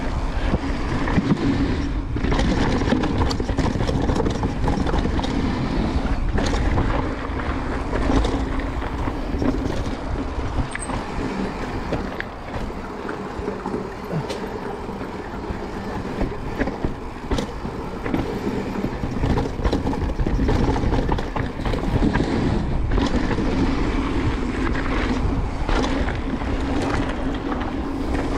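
Transition Sentinel mountain bike riding down a dirt trail: tyres rolling over rough ground, with frequent clicks, knocks and rattles from the bike over bumps, and wind rushing over the microphone.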